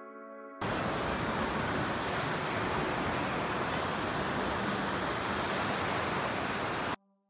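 Surf breaking and washing up a sandy beach: a steady rush of noise that comes in abruptly about half a second in, after a held music chord, and cuts off sharply near the end.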